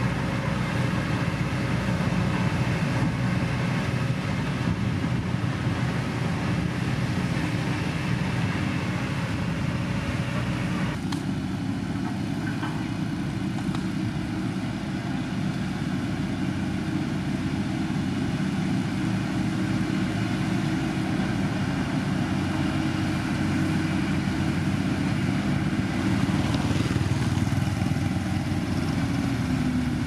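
Heavy diesel construction machines running steadily: Sakai road rollers, then, after an abrupt change about eleven seconds in, a SANY motor grader spreading gravel.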